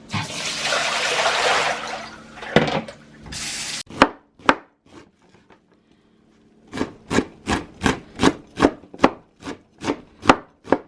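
A knife chopping blanched amaranth greens on a cutting board: a scraping, rubbing noise at first, then sharp chops that settle into a steady rhythm of about three a second in the second half.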